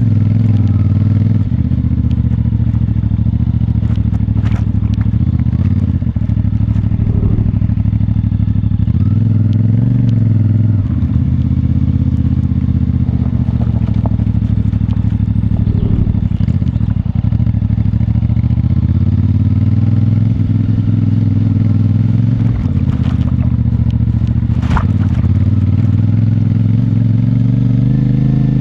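CFMoto 450MT's parallel-twin engine through its stock exhaust, running steadily under light throttle while riding, its pitch lifting a little now and then with the throttle. A few sharp clicks, once about four seconds in and twice near the end.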